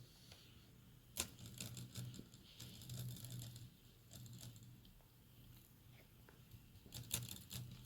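Keys tapped on a Dell Inspiron N5110 laptop keyboard, faint scattered clicks in short runs, as the newly fitted keyboard is tested. A faint steady low hum lies underneath.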